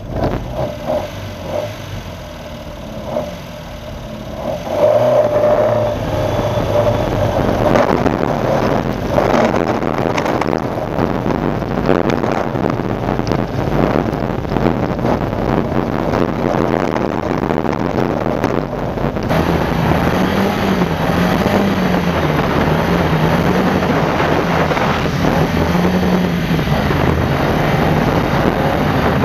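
Freshly built 2.0-litre Ford Pinto four-cylinder engine in an Escort rally car, running on throttle-body injection. It blips briefly at first, then revs hard from about five seconds in as the car drives flat out on dirt. The engine note rises and falls with the throttle.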